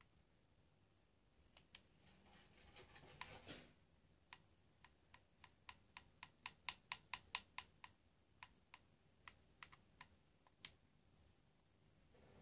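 Plastic buttons clicked over and over in quick runs, up to about four clicks a second, as a TV remote is pressed repeatedly to scrub through a video. A brief rustle comes about three seconds in.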